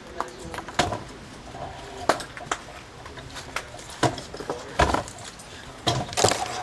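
Irregular knocks, taps and clinks of people moving about among clutter and debris, with the sharpest knocks near the end.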